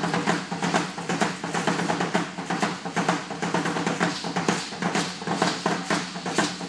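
Percussion for an Aztec-style danza: a drum beating with the dancers' ankle rattles shaking in a quick, dense, unbroken rhythm.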